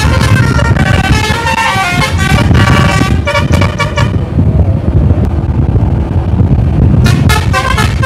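Bus telolet horn, a multi-tone air horn, playing a quick run of changing notes for about four seconds, pausing, then starting again near the end, over the loud low rumble of the bus engine.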